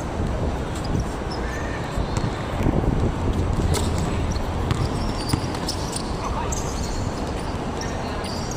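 Basketball bouncing on a court during play, a scattering of sharp thuds over the general noise of the game.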